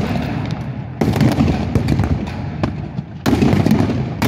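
Pyrotechnic blasts from a battle re-enactment, with sharp crackling. A sudden loud blast comes about a second in and another just past three seconds, each followed by a dense run of crackles over a low rolling noise.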